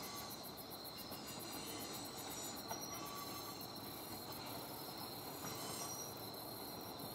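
Crickets chirring at night: a steady high trill with fast, even pulsing over a faint background hiss.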